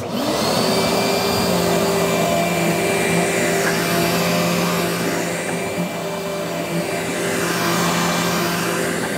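Dirt Devil Featherlight Bagless (Breeze) vacuum cleaner switched on, its motor spinning up with a brief rising whine, then running steadily with a loud rushing hum.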